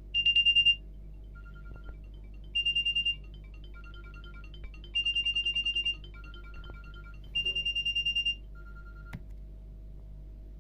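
Nokia Asha 300 phone speaker playing an Alcatel OneTouch 2005D ringtone. A rapid trill of high beeps is answered by a short, softer, lower beep, and the pair repeats four times, about every two and a half seconds.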